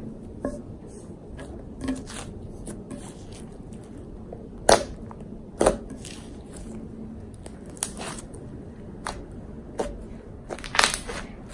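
Purple slime being kneaded by hand with instant-snow granules mixed in for a cloud slime: soft squishing with scattered sharp clicks and pops, the two loudest about halfway through and a quick run of them near the end.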